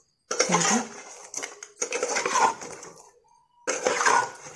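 Flat metal spatula scraping an aluminium kadai while turning fried buri pitha in sugar syrup, in three separate strokes.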